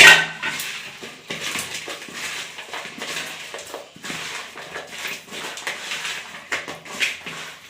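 Crab pieces being mixed by hand with spice masala in a bowl: wet squelching with shells clicking, opening with one loud knock.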